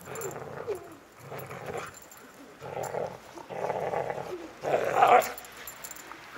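Siberian husky vocalizing in play: a run of about five short growly calls, each under a second long, with the loudest near the end.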